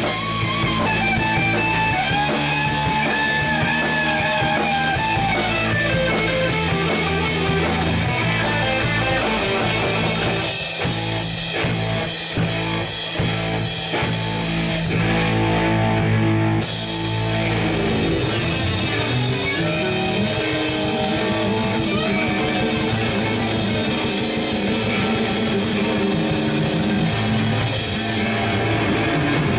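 Rock band playing live: electric guitars and a drum kit in an instrumental passage with no singing, the music running steadily throughout.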